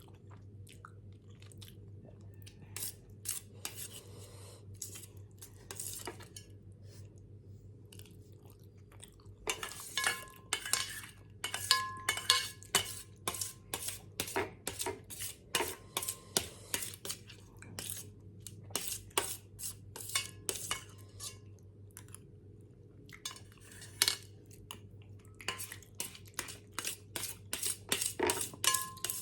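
Metal cutlery clinking and scraping against a dish while scooping up noodles: a few scattered clinks at first, then rapid clinks from about ten seconds in, some with a short ringing tone.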